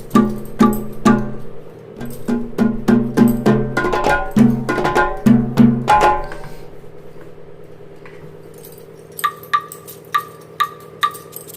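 Background instrumental music with a percussive beat of wood-block-like hits over low pitched notes; it thins out about six seconds in, and a light ticking beat of about two ticks a second comes in near the end.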